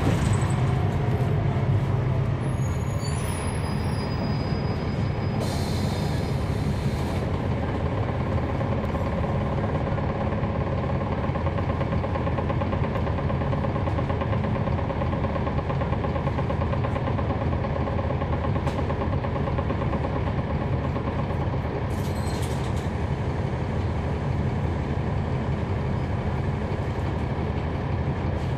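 Diesel engine of a NABI 416.15 transit bus (Cummins ISL9 with ZF Ecolife automatic), heard from inside the bus, running steadily with a low rumble. A brief high squeal comes a few seconds in, and short hisses of air sound about six seconds in and again near the end.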